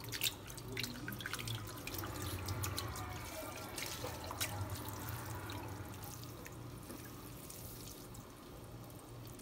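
Water dripping and splashing in a pot as wet, rinsed rice vermicelli noodles are lifted out and folded by hand. The drips are thickest in the first half and thin out later, over a low steady hum.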